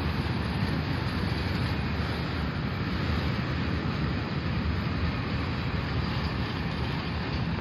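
Container freight train rolling past on a far track, a steady rumble of wagons on the rails.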